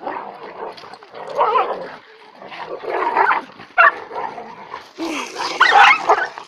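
Two dogs fighting: growling and snarling with sharp yelps and barks in irregular loud bursts, the loudest near the end.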